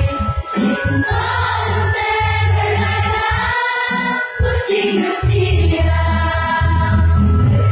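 A large group of people singing together, with a steady low bass backing underneath.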